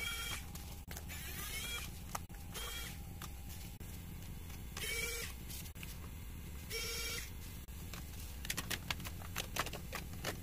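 Electric precision screwdriver whirring in several short bursts of about half a second, each rising in pitch as the motor spins up while it backs out screws from a graphics card's backplate. Light clicks and handling clatter in the last couple of seconds.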